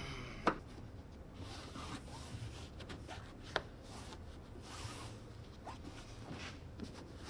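Hands working the convertible top and its parts: rubbing and rustling, with a few sharp clicks, the loudest about half a second in and another in the middle.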